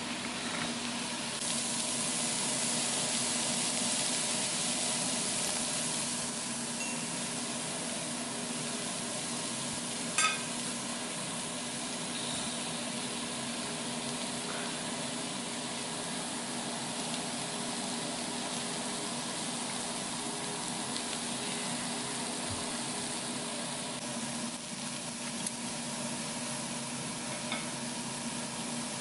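Meat, crab sticks, onion and mushrooms sizzling steadily on a tabletop grill pan, a little louder in the first few seconds. One light clink about ten seconds in.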